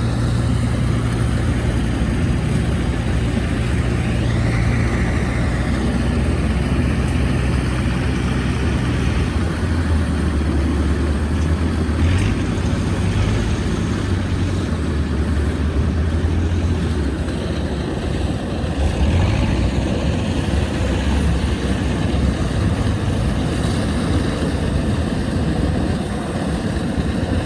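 Combine harvester's diesel engine running steadily under load in a muddy rice field. Its low note drops about nine seconds in and wavers after that.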